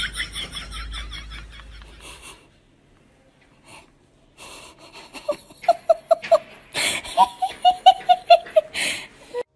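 A person laughing in rapid rhythmic bursts: a high, wheezy giggle at first, then after a short pause a louder run of 'ha-ha' laughter, several pulses a second.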